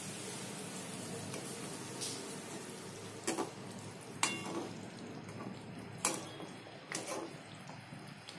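A slotted spoon stirring thick curry gravy in an aluminium kadai over a steady bubbling simmer, with several sharp clinks of the spoon against the pan in the second half.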